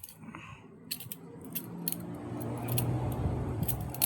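Metal balisong (butterfly knife) being flipped open and closed, its handles and blade clicking and clacking several times in quick, uneven succession. A low rumble swells about halfway through and is loudest near the end.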